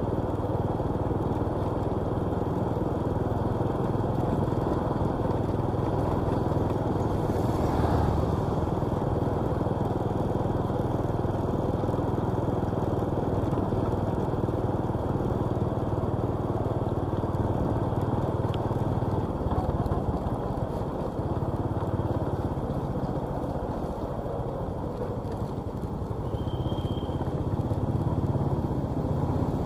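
Steady engine and road noise of a vehicle driving through city traffic, with a brief louder whoosh about eight seconds in and a short high-pitched tone near the end.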